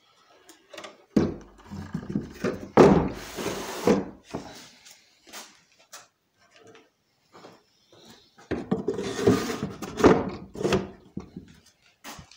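Wooden bird cages being slid and set down into a pine-lath and hardboard packing box: wood scraping and knocking against wood, in two bouts of rattling and scraping, one about a second in and one about two-thirds of the way through, with a few single knocks between.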